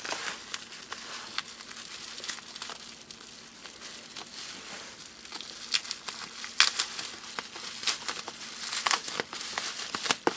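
Plastic bubble wrap crinkling as it is handled and unwrapped from a box, with a scattering of sharp snaps, the loudest a little over halfway through.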